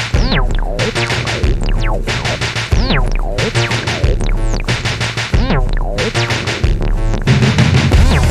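Slowed-down electronic music: a drum-machine beat under synthesizer sounds with repeated falling pitch glides over a steady deep bass. A heavier bass note comes in near the end.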